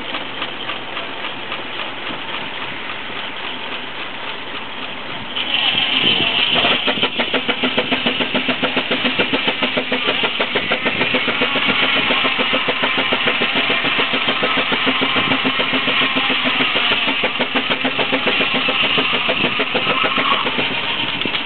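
Sawmill circular saw driven by a 20 hp Sawyer Massey steam traction engine. It runs steadily, then grows suddenly louder about five seconds in as it goes into a cut, with a high whine and a fast, even pulsing that continue to the end.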